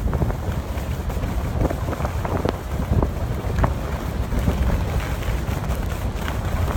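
Wind rushing over the microphone of a skier going downhill, with the hiss and scrape of skis on groomed snow coming through as short, uneven scratches.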